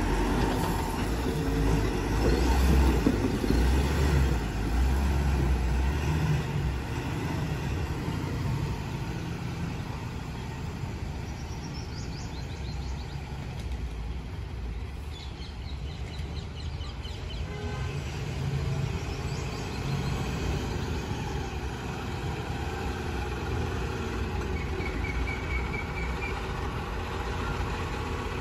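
Diesel engines of heavy Tata tipper trucks running as they drive across dirt ground, a steady low rumble. It is loudest in the first few seconds as a truck moves close by, eases off through the middle, and grows again near the end as another truck approaches.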